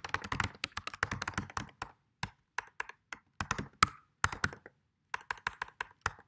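Typing on a computer keyboard: quick runs of keystrokes broken by short pauses, with one louder keystroke about four seconds in.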